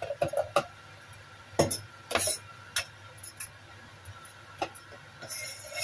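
Kitchen knife scraping sliced bitter melon off a wooden cutting board into a ceramic bowl: a few sharp, irregular knocks and clinks of the blade on board and bowl, the loudest about one and a half seconds in.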